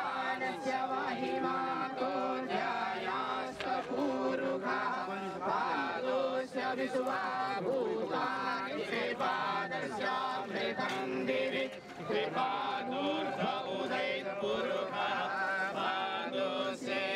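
A group of men chanting a Hindu mantra together, many voices overlapping at a steady level.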